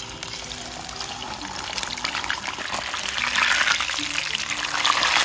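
Whole red tilapia frying in hot oil in a pan: a sizzle and crackle that grows louder about a second in and is loudest over the last couple of seconds.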